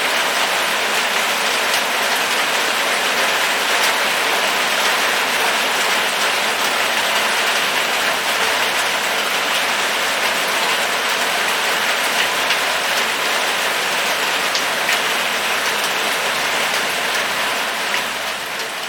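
Steady rain falling: a dense, even hiss with scattered ticks of individual drops, starting to fade out near the end.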